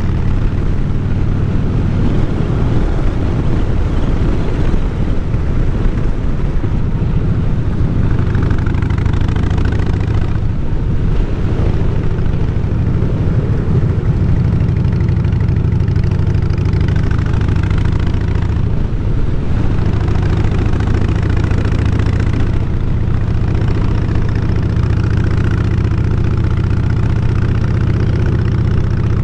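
Harley-Davidson Fatboy's V-twin engine running steadily under way, with wind noise over it; the engine note eases off briefly twice.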